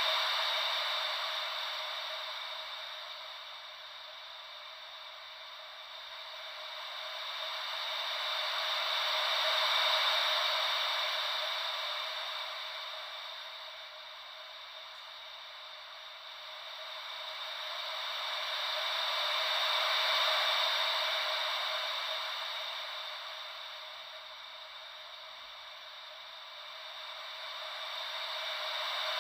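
Steady white-noise hiss shaped to imitate gentle ocean waves. It swells and fades evenly, peaking about every ten seconds, with almost no bass.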